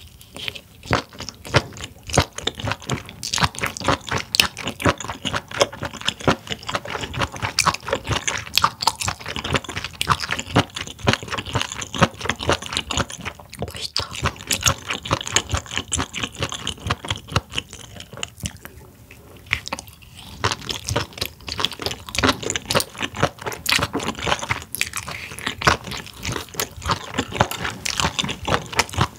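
Close-miked chewing of grilled spoon worm bitten off a skewer: rapid, irregular chews and bites, with a short lull about two-thirds of the way through.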